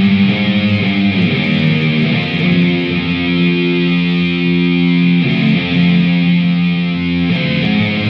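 Death metal: heavily distorted electric guitar playing slow, held chords that change every second or two.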